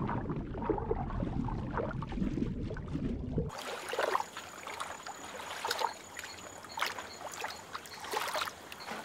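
Muffled underwater water noise as a giant otter swims. About three and a half seconds in it switches to surface water sounds: lapping and several splashes as the otter moves at the surface and dives.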